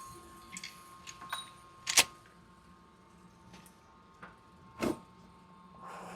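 A few sharp mechanical clicks and clacks from handling a lever-action rifle at the bench. The loudest comes about two seconds in, and another near five seconds.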